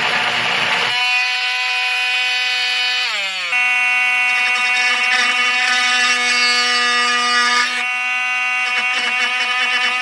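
Parkside 12 V cordless oscillating multi-tool. For about the first second its blade grinds into wood, then the tool gives a steady high buzz. About three seconds in the buzz slides down in pitch as the tool winds down, then a moment later it is buzzing steadily again.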